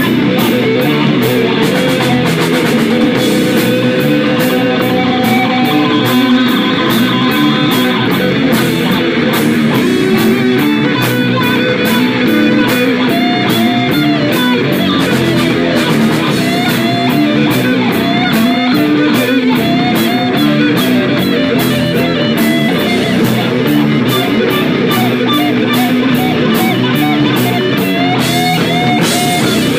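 Rock band playing live: electric guitar over a drum kit, with a steady beat of cymbal hits.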